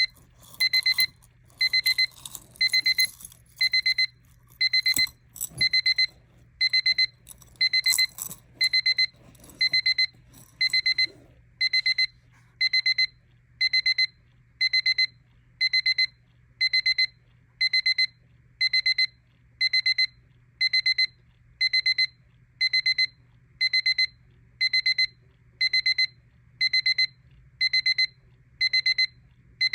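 Battery travel alarm clock's alarm beeping: a high-pitched burst of rapid beeps about once a second, repeating evenly. Some rustling and a few clicks sound under it in the first ten seconds or so.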